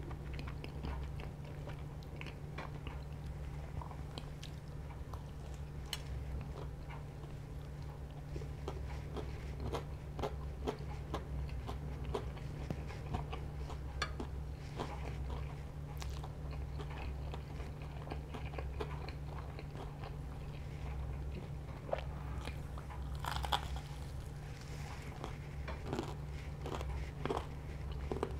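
Close-miked crunching and chewing of crispy buttermilk fried chicken, with many sharp crunches that come thickest late on, over a steady low hum.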